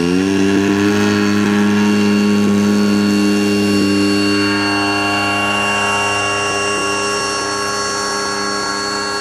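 Radio-controlled Aeroworks Extra 260 model aerobatic plane running at full throttle for its takeoff run and climb: a steady, high engine-and-propeller drone. Its pitch rises right at the start as the throttle opens, then holds, and it fades slightly as the plane climbs away.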